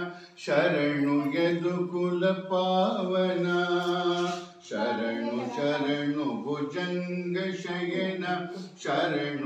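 A man chanting mantras in a steady, sing-song recitation, in long phrases with brief pauses for breath about every four seconds.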